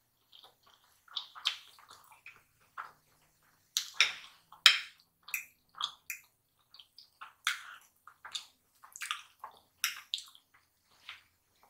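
Close-up wet mouth sounds of someone eating fried chicken and mashed potatoes: irregular smacks, squishes and small clicks, one to a few a second.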